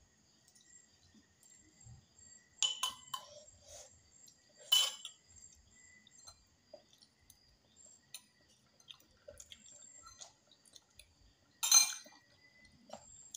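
Close-up eating sounds: soft chewing and mouth noises, with a few sharp clicks and clinks. The loudest comes near the end, as a spoon knocks in a glass jar.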